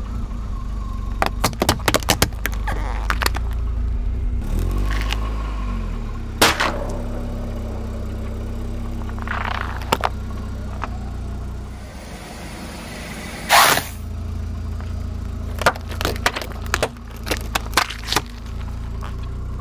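A car engine idling with a steady low hum while its tyre rolls over and crushes plastic tubs and cans, giving sharp cracks and pops in quick runs. A single loud burst about two-thirds of the way through is the loudest moment.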